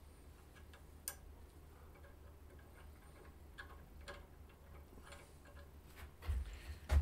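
Faint, irregular metallic ticks and clicks from a hand-turned Helicoil installation tool working a steel thread insert into a tapped stud hole in an aluminium engine case, with one sharper click about a second in. A few low thumps of handling near the end.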